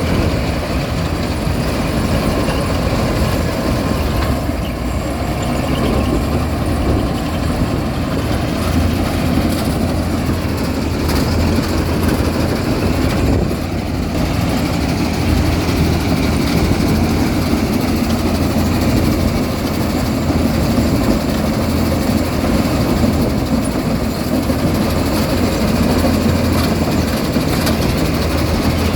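Rice combine harvester running steadily, its engine and machinery making an even mechanical sound.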